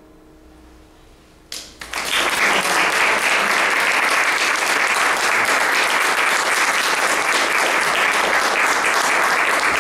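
The last chord of a digital piano fading out, then an audience applauding steadily from about a second and a half in.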